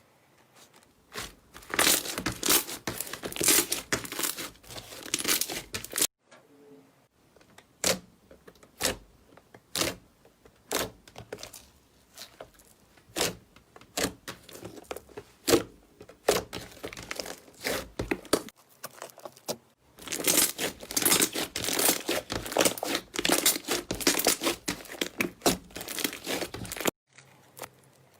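Slime being squeezed and worked by hand, giving dense crackling and popping, then a stretch of separate single pops a second or so apart, then dense crackling again. The sound cuts off suddenly twice.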